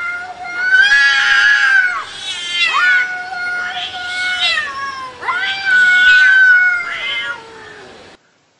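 Cats yowling at each other face to face. Long, drawn-out caterwauls, each held a second or two and wavering up and down in pitch, come in several bouts: the warning calls of a cat standoff. The yowling cuts off abruptly near the end.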